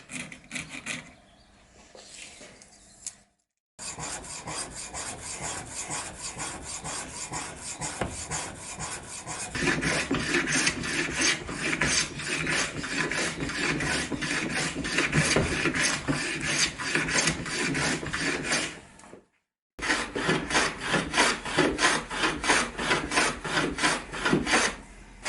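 Wood being rubbed by hand with an abrasive in quick, even back-and-forth strokes. The strokes run in three stretches, each broken off abruptly, and grow louder about ten seconds in.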